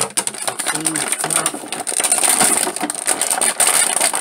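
Clear plastic blister tray crackling and crinkling as hands flex it and work an action figure out of it, a dense run of irregular crackles that gets busier after about two seconds.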